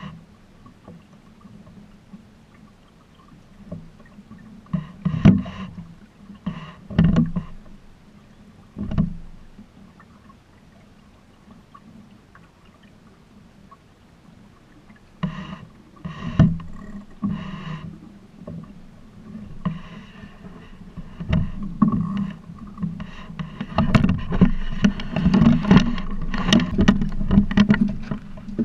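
Water lapping and splashing against the hull of a Buccaneer 18 sailing dinghy under sail, with scattered sharp knocks and thumps from the boat. The splashing grows busier and louder over the last few seconds.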